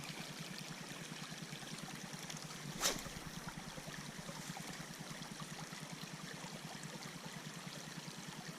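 Creek water running steadily, with a single sharp click about three seconds in.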